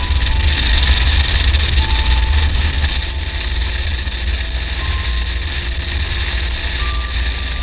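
Motorcycle being ridden at a steady pace, its engine and wind making a heavy, constant rumble on the microphone over an even hiss of wind and tyre noise.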